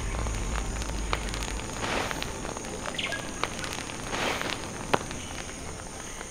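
Smoky fire crackling with irregular sharp pops and rustling swells, over a steady high insect drone.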